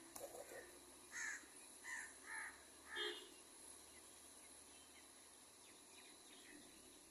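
Crow cawing: four short caws over about two seconds, starting about a second in, the last one the loudest.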